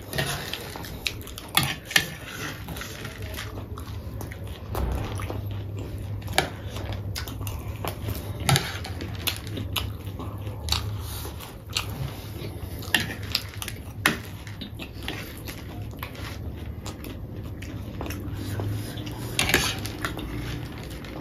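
People chewing and biting mouthfuls of crunchy spicy chatpate close to the microphone, with scattered sharp clicks and crunches over a low steady hum.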